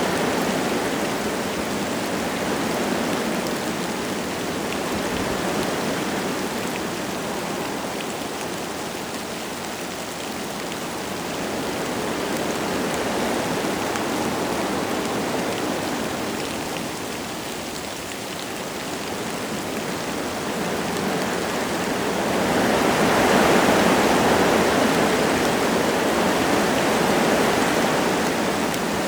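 Wind gusting through forest trees with light rain falling: a steady rushing that swells and eases in slow waves, rising to its strongest gust a little past two-thirds of the way through.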